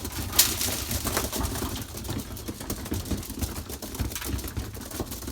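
Racing pigeons moving about in the loft: a scatter of light clicks and scuffs, with one sharper click about half a second in, over a steady low rumble.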